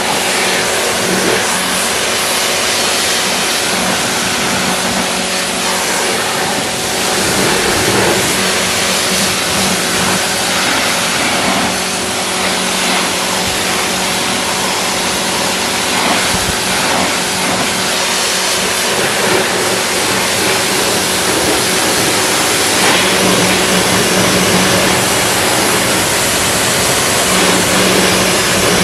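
Pressure washer running, its motor humming steadily under the dense hiss of the high-pressure water jet spraying the car's bodywork.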